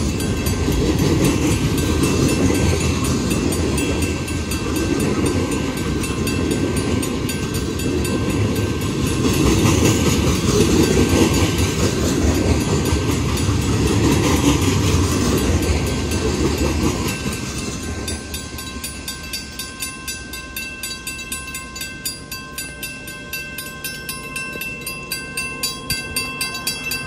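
Freight train rolling through a grade crossing, its wheels and cars rumbling steadily, with the crossing bell ringing over it. At about 17 seconds the train clears and the rumble fades, leaving the crossing bell's regular dinging.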